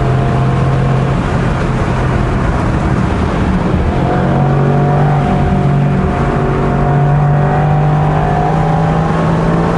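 Mercedes-AMG GT R Roadster's twin-turbo V8 running hard at track speed, heard from the open cockpit with the roof down, so wind noise runs under it. The engine note is weaker and rougher for the first few seconds, then comes back strong and steady about four seconds in as the car pulls again.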